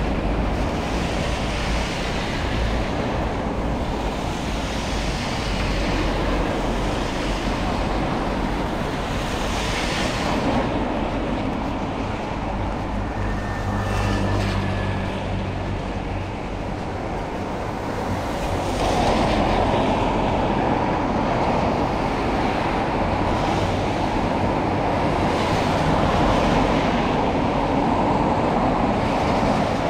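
Vehicles passing in the rain: a steady wash of noise that swells and fades several times as each one goes by, growing louder in the last third.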